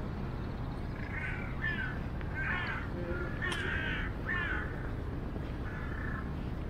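Crows cawing: a quick run of about six harsh caws, then one more near the end, over a steady low hum of city traffic.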